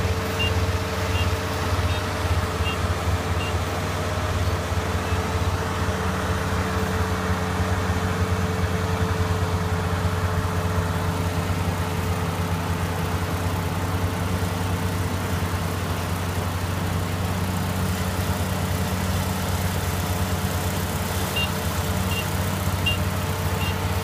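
Iseki Frontier Fighter 447 combine harvester running steadily as it cuts and threshes rice: a constant diesel engine hum with the whir of the cutting and threshing machinery. Near the end, faint high beeps repeat about twice a second.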